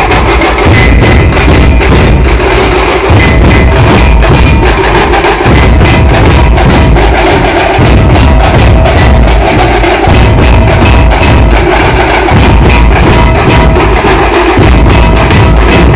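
Dhol-tasha ensemble drumming loud: rapid, crisp tasha strokes played with sticks over deep dhol beats, in a rhythmic phrase that repeats every couple of seconds.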